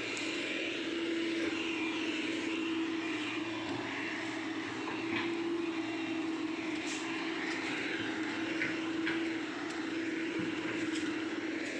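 Hyundai 210 excavator's diesel engine running at a steady speed, with a steady hum and a few light clicks.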